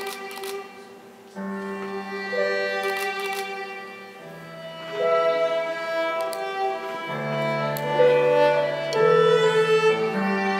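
Live music with bowed strings playing a slow melody of long held notes over a lower sustained note, with the notes changing every second or two.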